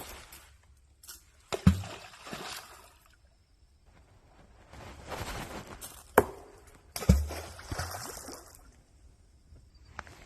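Rocks thrown into a pool of water, landing with two loud splashes about five seconds apart, each a deep plunk followed by a short wash of water. A sharp click comes about a second before the second splash.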